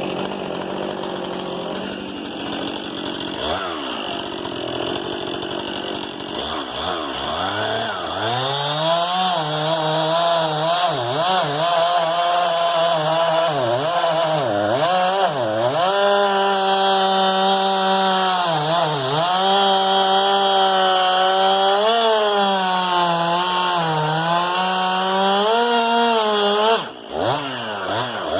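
Stihl MS 261 C-M two-stroke chainsaw running at high revs, then cutting into a thick log: from about seven seconds in, its engine note drops under load and rises and falls as the cut goes on. The saw briefly lets off near the end.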